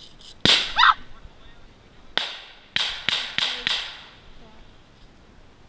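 A sudden loud short cry, then a string of five sharp shots about a third of a second apart, typical of airsoft rifles fired semi-automatically in woodland.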